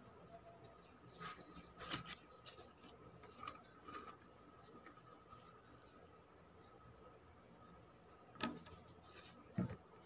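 Faint rustling and scraping of paper cut-outs being slid and pressed into place on a sheet of paper, with a few short brushes and taps, the loudest about two seconds in and near the end.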